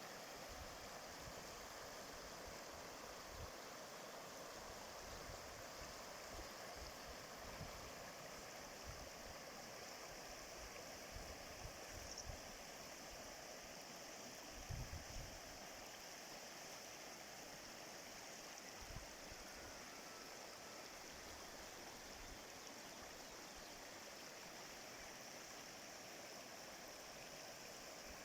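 Faint, steady rush of a flowing stream, with a few soft low thumps now and then, the strongest about halfway through.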